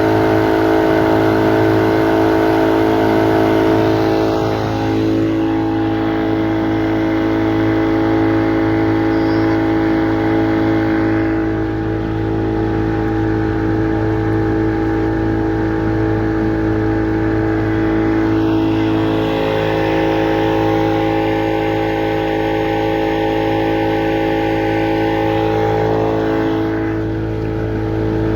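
Motorboat engine running steadily, its pitch dipping briefly about five seconds in and again near the twenty-second mark.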